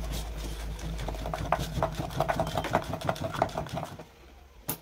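A thin metal stick stirring two-part epoxy in a cut-down plastic bottle: quick, irregular scraping and tapping against the plastic sides. It pauses briefly near the end, then one sharp click.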